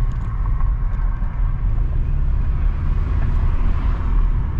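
Steady low road rumble of a car driving.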